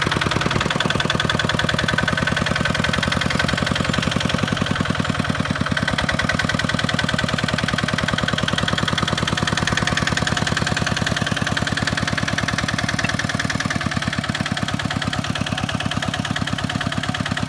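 Single-cylinder diesel engine of a Kubota two-wheel walking tractor running steadily, with a fast, even pulse of firing strokes.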